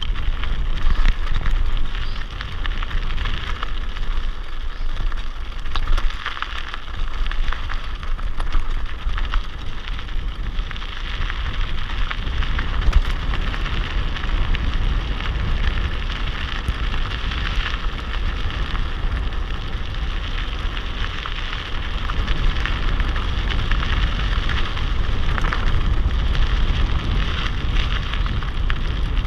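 Mountain bike tyres crunching and crackling over a loose gravel road on a downhill run, with the bike rattling and wind rumbling on the microphone.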